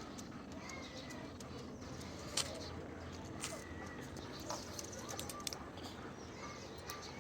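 Parrots making soft short chirps over a steady background hiss, with scattered sharp clicks, the loudest about two and a half seconds in.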